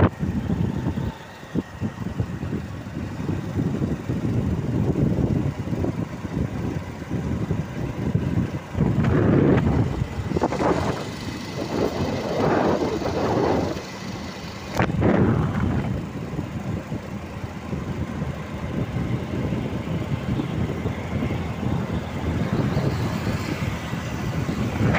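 Wind buffeting the phone microphone on a moving motor scooter or motorbike, over steady engine and tyre noise, with irregular gusty surges.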